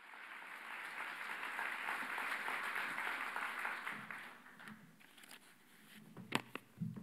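Audience applauding, dying away after about four seconds, followed by a few sharp clicks near the end.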